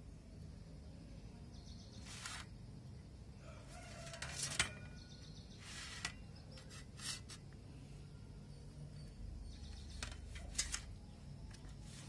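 Short, scattered handling sounds as a hand turns a wet fish on a steel plate, with birds chirping faintly in the background.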